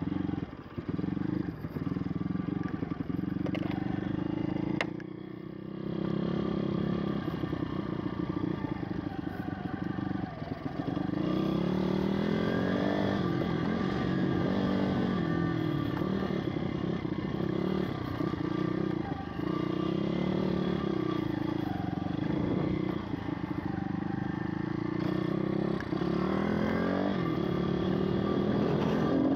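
Pit bike engine running on a dirt trail, its pitch rising and falling as the throttle is opened and closed, with a short drop in level about five seconds in.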